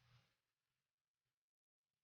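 Near silence: a faint sound fades away in the first half second, then the track is all but empty.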